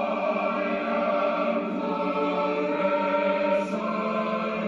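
Choir singing slow, sustained chords, heard through a television speaker.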